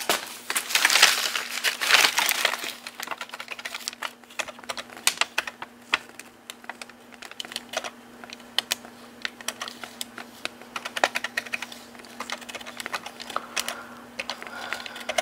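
Keys being pressed in a long, irregular run of sharp clicks, with some rustling in the first couple of seconds and a steady low hum underneath.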